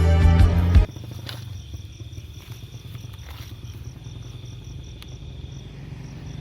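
Music cuts off abruptly about a second in, leaving a night chorus of crickets and other insects. It holds an evenly pulsing high chirp over a low steady hum.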